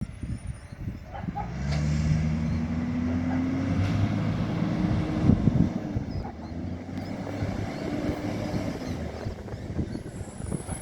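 Diesel engine of a FOGO garbage truck running and pulling away, its note swelling and rising slightly, then easing off. The truck has an exhaust leak.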